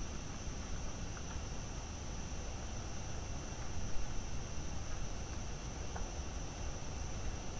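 Night insects chirring in a steady high-pitched drone, over a low background rumble.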